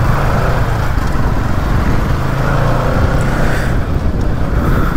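Bajaj Pulsar NS200 motorcycle on the move, its engine running underneath a steady rush of wind over the microphone.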